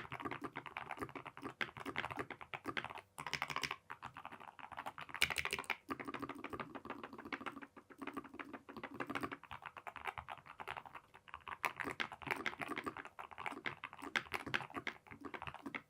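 Fast, continuous typing on a Keychron K2 HE keyboard with magnetic Hall effect switches: a dense run of thocky key strikes, broken by a few short pauses.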